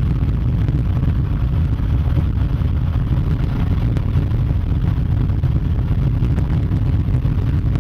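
Steady low rumble of a moving vehicle mixed with wind noise.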